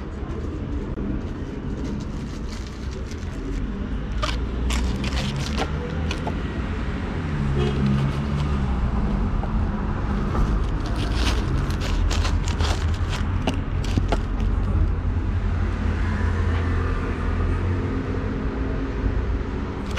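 Scattered clicks, taps and light scrapes of hands handling things close to the microphone, over a steady low rumble of street traffic.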